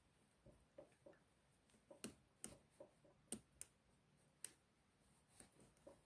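Faint, irregular metallic clicks of a lock pick working the pin stack inside an Abus Titalium padlock's keyway, with pins and springs ticking as they are lifted under tension from a tension wrench.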